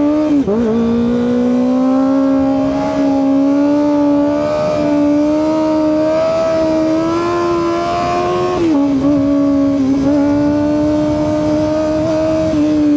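Kawasaki ZX-25R SE's inline-four engine through an Austin Racing aftermarket exhaust, pulling hard under way. There is a quick drop in pitch about half a second in, then a high steady note that climbs slowly, dips briefly near nine seconds and settles again.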